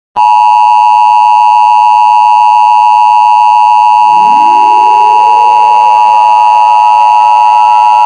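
Emergency Alert System attention signal: a loud, steady electronic two-tone beep held for about eight seconds, starting a moment in and cutting off abruptly at the end. About halfway through, a siren starts winding up underneath, rising in pitch and levelling off.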